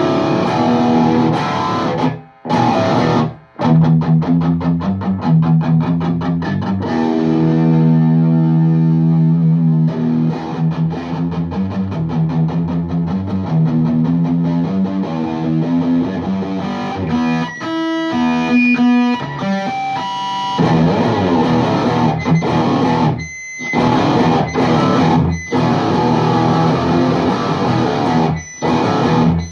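High-gain distorted electric guitar from a Les Paul Custom through a VHT Fryette Deliverance D60 tube head with two KT88s, miked on a 4x12 cabinet with Vintage 30 speakers. It plays tight, fast chugging riffs with two short stops near the start, and held high notes in the second half.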